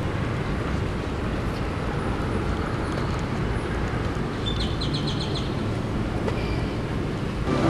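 Steady outdoor noise of wind on the microphone and traffic, with a short quick run of five or six high chirps about five seconds in.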